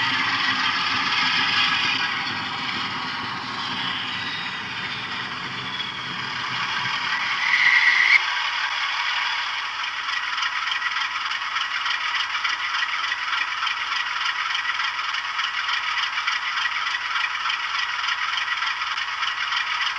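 Model diesel locomotive with a DCC sound decoder running in over the track with a rumbling rattle. About eight seconds in the rumbling stops with a brief high squeal as it comes to a stand. The decoder's diesel engine sound then carries on as a steady idle.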